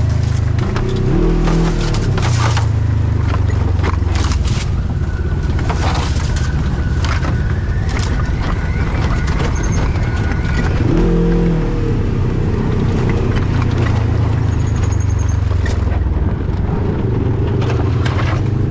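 An off-road vehicle engine runs steadily under load, with its pitch rising as it revs up about a second in and again past the halfway point. Frequent sharp knocks and rattles from the machine working over rough trail run through it.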